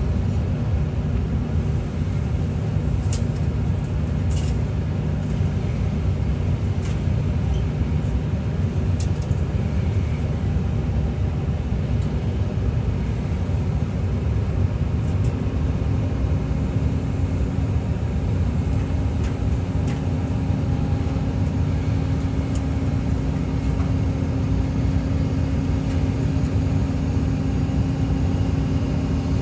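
Excavator's diesel engine running steadily under work, a dense low drone, with a steady higher tone joining in about halfway through.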